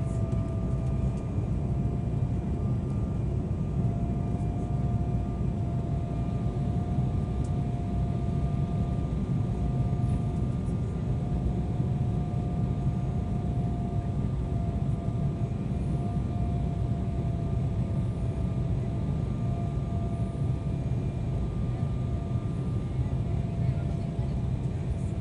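Cabin noise of an Embraer 190 airliner descending for landing: the steady low rumble of airflow and its CF34 turbofan engines, with a thin steady whine held above it.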